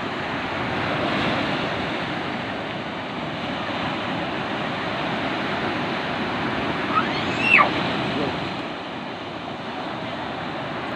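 Sea surf washing steadily onto the beach, swelling slightly a second or two in. About seven seconds in, a brief high call rises and falls once over the surf.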